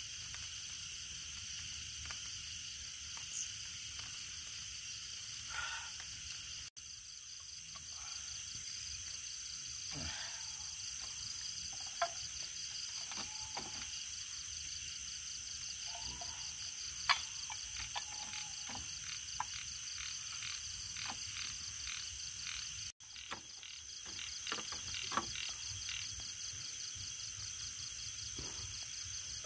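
A forest night chorus of frogs and insects: a steady, high-pitched trilling with a fast pulse, with scattered small clicks and knocks. The chorus drops out for an instant twice.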